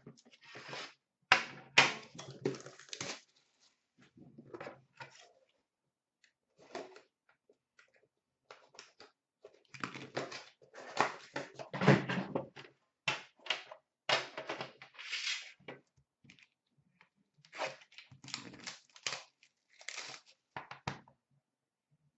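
Hands unboxing a sealed hockey card box: irregular rustling, taps and thunks of cardboard and the case inside being handled, with plastic wrap crinkling as it is pulled off.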